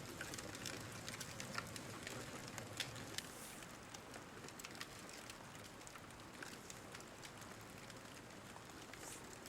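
Newly lit campfire crackling faintly, with irregular small snaps and pops over a steady hiss.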